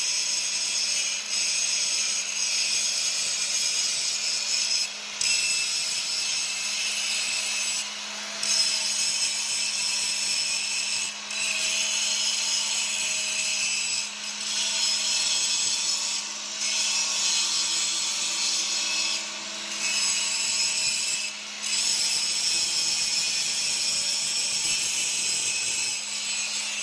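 Salt processing machinery running, a steady gritty rasping with a constant low hum underneath, broken by short breaks every few seconds.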